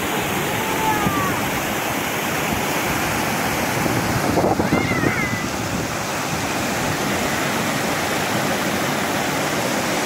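Water spilling over the lip of a small weir into a foaming pool below: a steady, even rushing.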